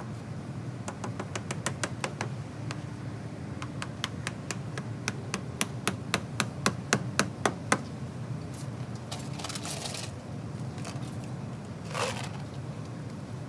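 A quick series of sharp knocks, about three or four a second, growing louder for several seconds and then stopping, from tool work fastening the bender board edging. A few short scraping rustles follow near the end.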